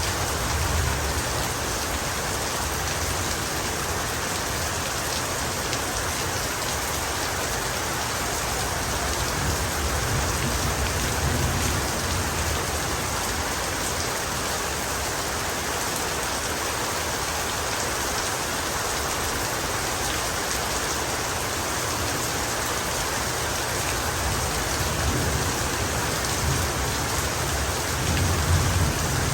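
Heavy rain falling steadily as an even hiss, with low thunder rumbling up a few times, loudest near the end.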